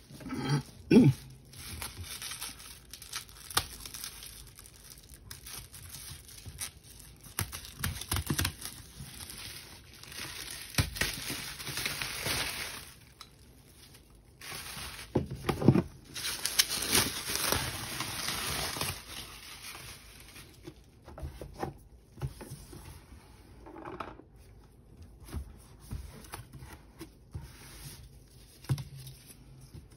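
Packaging being torn and crinkled as a parcel is unwrapped: irregular bursts of rustling and tearing, with a sharp crackle about a second in.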